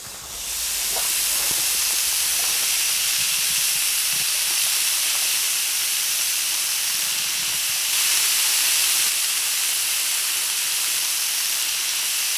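Beef short rib sizzling on an electric contact grill's ridged plate preheated to 210 °C: a steady hiss that swells up within the first second as the meat goes down.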